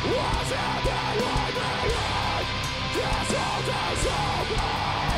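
Heavy metal band playing live: distorted electric guitars over drums.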